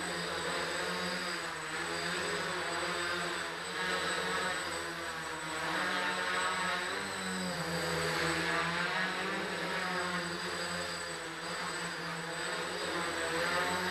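RotorBits quadcopter's electric motors and propellers whirring in flight, the pitch wavering up and down and the loudness swelling and dipping as the throttle is worked to hold and move it.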